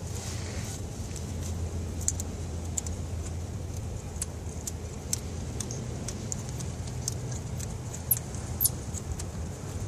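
Hand tools working on nuts and a bolt in the engine bay: scattered sharp metallic clicks and clinks, with two short high squeaks about eight seconds in, over a steady low hum.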